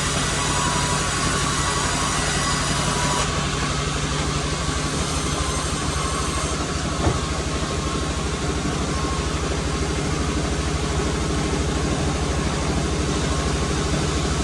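Sawmill machinery running steadily: an engine-driven hum with a fine even pulse, and a high whine that drops away about three seconds in. A single sharp knock sounds about seven seconds in.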